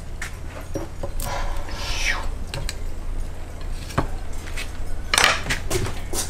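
Wooden spatula scraping and tapping as a cooked waffle is lifted out of an electric waffle iron and set on a plate: light clicks, a scrape, then a few sharper knocks, over a steady low hum.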